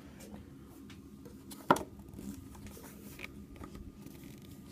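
Faint, steady sound of a shower running next door, heard through the wall as a low hum, with one sharp click a little under two seconds in.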